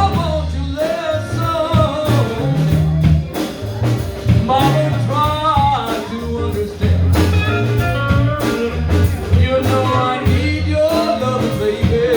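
Blues band playing a stretch of the song without words: a steady bass line and drums under a bending, sliding lead melody line.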